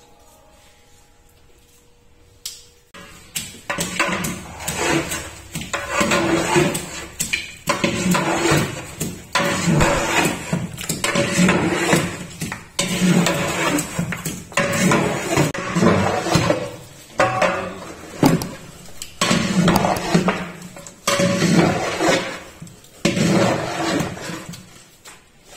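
A long metal stirring rod scraping and knocking inside a large aluminium cooking pot as meat and spices are mixed. The strokes come roughly once a second and the pot rings at each one. They start about three seconds in, after a quiet stretch.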